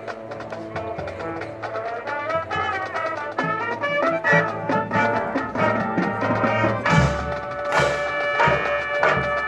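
High school marching band playing, with the brass section holding chords over percussion. It swells louder with a percussion hit about seven seconds in.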